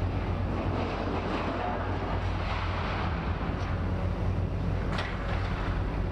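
Steady low rumble of distant demolition machinery, with wind noise on the microphone. A single sharp click comes about five seconds in.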